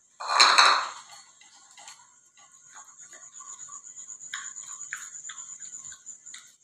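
Bully kutta puppy lapping milk from a bowl: quick, even laps, several a second, building from about two seconds in, over a steady high-pitched whine. A short, loud burst of noise comes just after the start.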